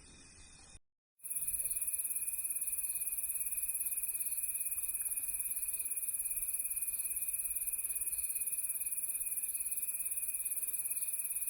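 A steady, high-pitched chorus of insects trilling with a fast, even pulse. It starts abruptly about a second in, after a brief drop-out.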